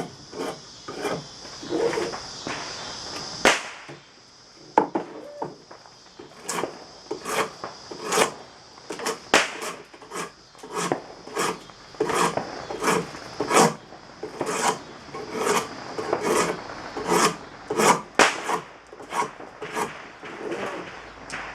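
Draw knife cutting green black locust at a shave horse: short, quick hacking strokes, a little more than one a second, each a sharp scrape of the blade taking off wood.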